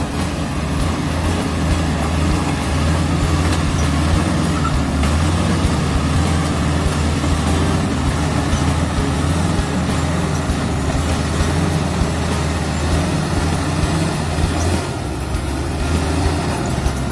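Komatsu D85E-SS crawler bulldozer's diesel engine running steadily with a deep low drone while the dozer pushes earth, easing slightly about fifteen seconds in.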